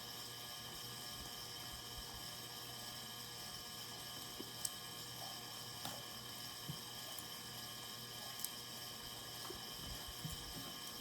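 Steady hum of a heating and cooling fan with a few faint, scattered clicks from handling craft materials.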